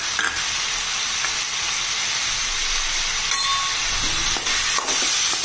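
Diced chayote and freshly added chopped tomatoes sizzling in hot oil in a metal kadai, a steady hiss, with a few light knocks of the stirring spoon against the pan.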